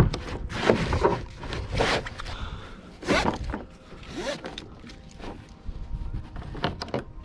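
Nylon webbing straps of a kayak seat being pulled through their plastic buckles and cinched tight: several brief rasps, with a few sharp clicks near the end.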